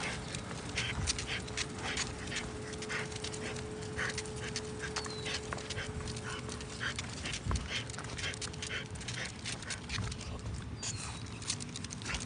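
French bulldog panting as it trots on a leash, a quick irregular run of short breaths and clicks.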